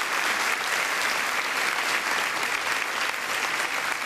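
Auditorium audience applauding steadily, dense clapping that neither builds nor fades.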